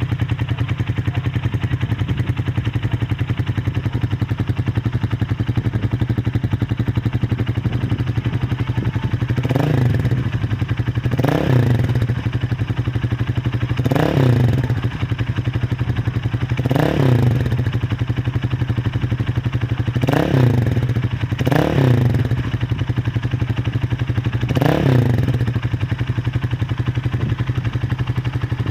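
Motorcycle engine with a silencer fitted idling steadily, then blipped by the throttle seven times in the second half, each rev rising and falling back quickly to idle.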